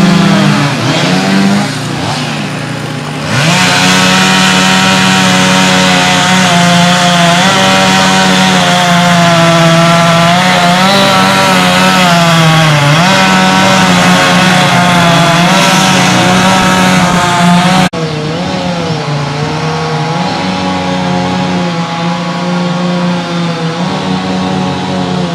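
Chainsaw engine running at high revs, easing off briefly about two seconds in and then held at a steady high pitch, its note wavering slightly as it works. Near the end the sound suddenly becomes quieter and keeps running.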